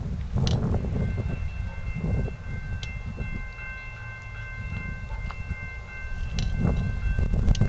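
A horn sounding a steady chord of several tones, held for about six seconds from a second in, over a low rumble.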